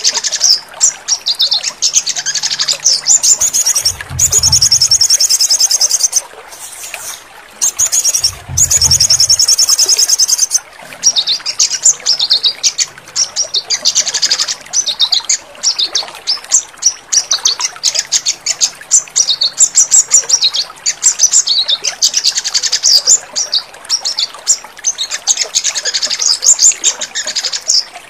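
Small songbird chirping and trilling rapidly and continuously, high-pitched and loud, with two brief low rumbles about 4 and 9 seconds in.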